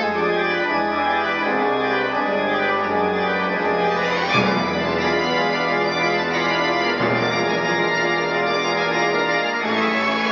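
Pipe organ sounding sustained chords with a deep held bass under a string orchestra. The bass changes note about four and about seven seconds in and drops out near the end.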